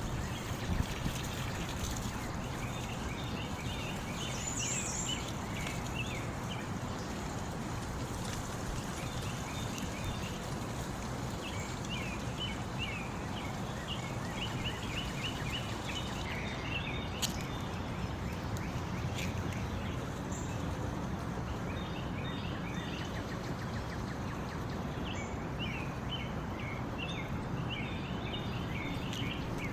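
Small songbirds chirping in repeated quick bursts of song over a steady rush of running water.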